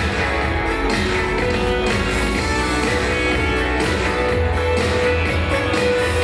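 Instrumental pop music with a steady beat and a strong bass line, playing without vocals.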